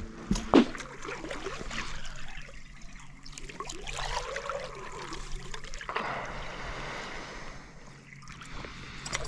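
Water trickling and lapping against a fishing boat's hull, with a couple of light knocks about half a second in and a faint steady low hum through most of it.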